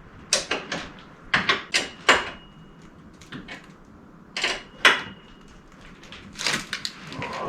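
Open-end wrench clinking against a bolt and the metal mounting hardware of a rock slider as it is tightened, in irregular groups of sharp metal clicks. A couple of the clinks ring briefly.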